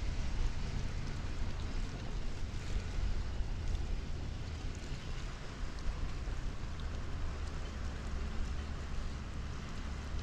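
Steady wind noise on an outdoor microphone, with a low rumbling drone underneath and a few faint ticks.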